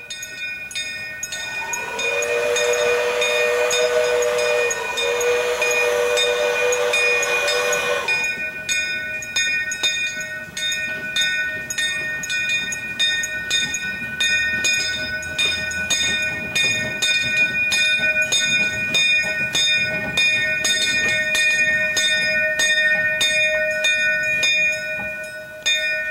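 Narrow-gauge steam locomotive. A steady chord of high tones sounds throughout. A heavy hiss of steam comes from about two to eight seconds in. After that a regular clicking, about twice a second, sets in as the train moves.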